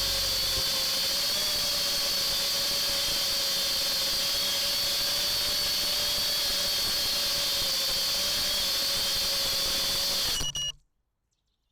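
FPV racing quadcopter's brushless motors and propellers whining at a nearly steady pitch, with a high-pitched electronic whine above it. The sound cuts off abruptly about ten and a half seconds in.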